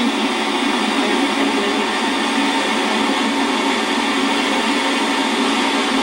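A waterfall's steady rushing, an even roar of falling water with no breaks.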